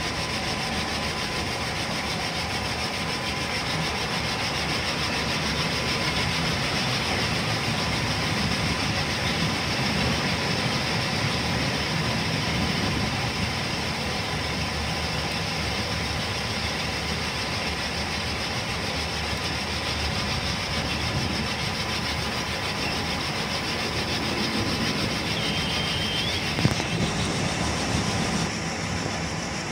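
Yellow rail work vehicle running along the track with a flat wagon: steady engine noise and wheels rolling on the rails, heard from the cab, with a faint steady whine.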